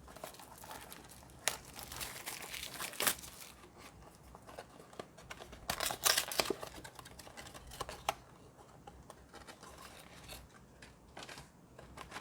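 A card box's packaging being torn open and crinkled, in several sharp crackles with quieter rustling and handling between them.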